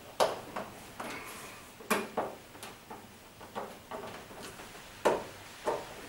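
Irregular sharp clicks and plastic knocks, about ten in a few seconds, as hands press a rubber door seal onto the rim of a tumble dryer's door opening.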